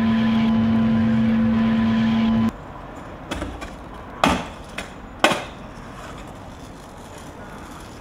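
A loud, steady machine hum at one constant pitch cuts off abruptly about two and a half seconds in. Then a stunt scooter lands hard on concrete after a drop off a ledge: a sharp impact about four seconds in, a second loud clack about a second later, with lighter knocks around them.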